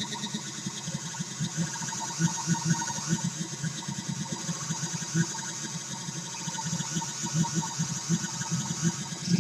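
Homemade 40106 square-wave oscillator noise synth, played by joystick, making a buzzing drone of several held pitches with a fast, irregular stuttering flutter.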